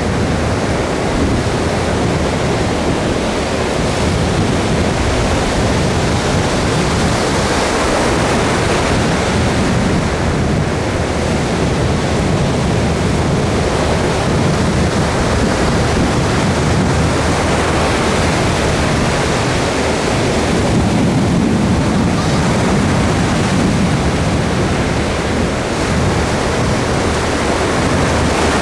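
Ocean surf breaking and washing up the sand at the water's edge: a continuous rushing that swells and eases with the waves.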